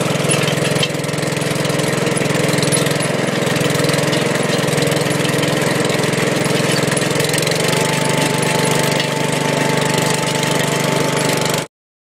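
Gravely two-wheel tractor engine running steadily under load as it drives a chain trencher digging through soil. A faint steady whine joins about two-thirds of the way in, and the sound cuts off suddenly near the end.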